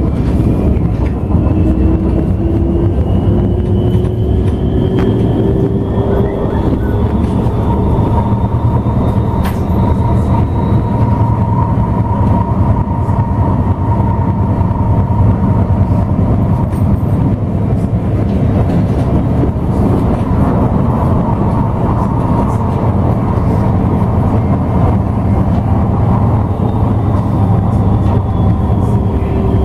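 Bombardier Incentro tram running on the line, heard from inside the car: a steady rumble of wheels on rail under the whine of the traction motors. The whine rises in pitch over the first ten seconds or so as the tram gathers speed, holds steady, then falls slightly near the end.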